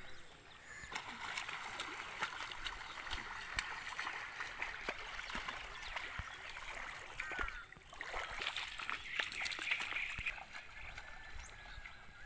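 Shallow water splashing and sloshing, with a scatter of small splashes, as a bamboo-framed push net is shoved through a flooded rice paddy.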